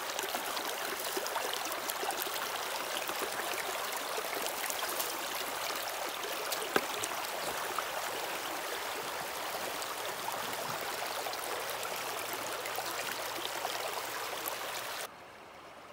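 Creek water rushing steadily through a metal river sluice box and over its mats. There is a single sharp tap about seven seconds in, and the sound drops off abruptly about a second before the end.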